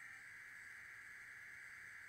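A television's alarm sounding, a faint, steady high tone; it is a really scary alarm sound.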